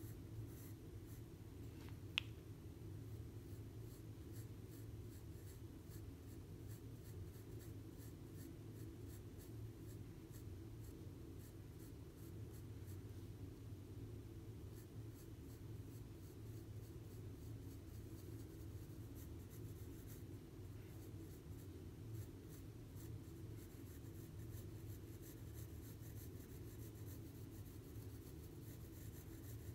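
Graphite pencil scratching on sketchbook paper in many short, quick shading strokes, faint, over a steady low hum. A single sharp click comes about two seconds in.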